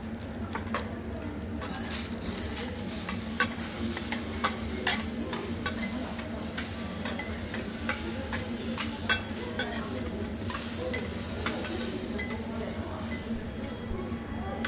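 Food sizzling on a steel teppanyaki griddle while metal spatulas scrape and tap against the plate in quick, irregular clicks; the sizzle swells about two seconds in.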